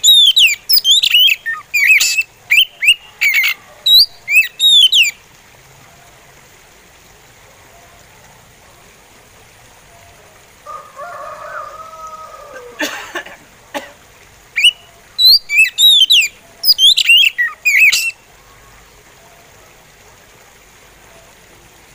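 Male oriental magpie robin singing in two phrases of sharp, fast whistled notes that swoop up and down, the first about five seconds long at the start and the second a few seconds long in the latter half, with a pause between.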